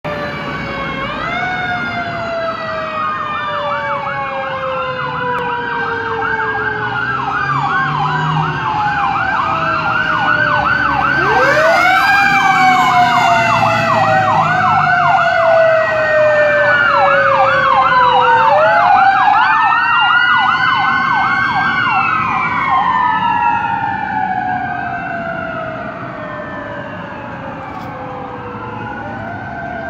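Fire engine and ambulance sirens on an emergency run, several sirens overlapping, some in a slow wail and others in a fast yelp. A deep siren winds up about eleven seconds in. They are loudest as the fire engine passes in the middle and fade toward the end.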